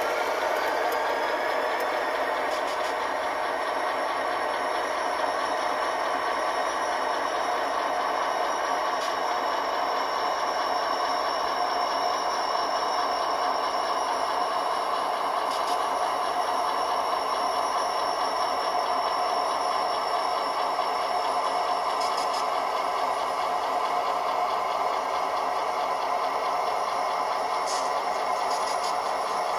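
Model San Diego Imperial Valley Railroad diesel locomotives running slowly along the track with a flatcar in tow. They make a steady mechanical rattle with a thin, high, steady whine over it and a few faint clicks.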